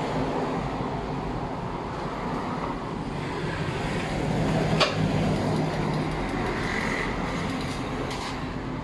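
Steady low mechanical hum with a noisy wash over it, and one sharp click about five seconds in.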